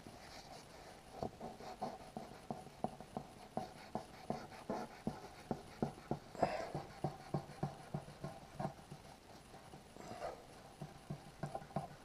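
A solvent-dampened wipe rubbed back and forth over a car's painted bumper, taking off excess scratch-filler putty: quick rhythmic rubbing strokes, about three a second, pausing briefly near the end before starting again.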